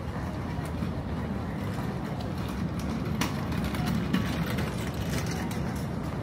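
City street ambience: a steady low rumble of traffic, with scattered light clicks and one sharper click about three seconds in.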